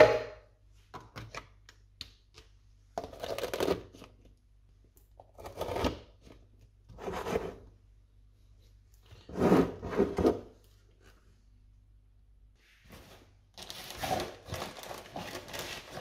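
Glass food containers being handled and fitted with clip-on plastic lids, with a plastic bag of vegetables rustling: a sharp knock, a few small clicks, then about five separate rustling, clattering bursts a second or two apart.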